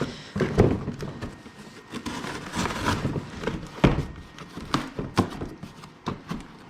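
Cardboard shipping box being worked open at its stubborn pull-tab corners: irregular scraping, rustling and tearing, with knocks as the box is handled, the sharpest about four seconds in.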